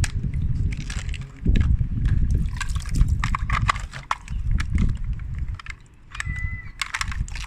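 Ice cubes being tapped, clinking and scraped in quick irregular clicks over a low rumbling handling noise, with a short squeak near the end.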